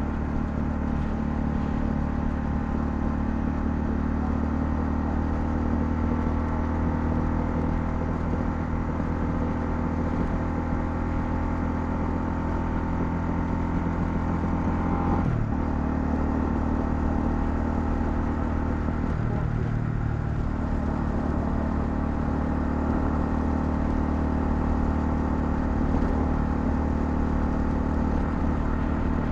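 Honda CL250's single-cylinder engine running at a steady pace while riding. The engine note changes pitch abruptly about halfway through and shifts again a few seconds later.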